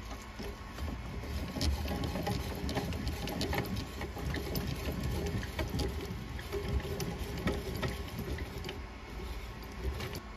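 Drill press running with an end mill cutting into a phenolic carburetor spacer: a steady motor hum under fast, irregular ticking and rattling from the cut.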